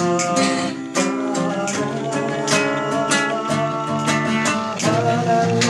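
Acoustic guitar playing chords, with a sharp strum or pluck every half second or so.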